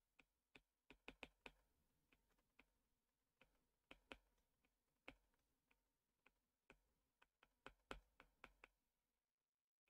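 Faint clicks and taps of a stylus on a tablet screen while handwriting, coming in small clusters with pauses between; otherwise near silence.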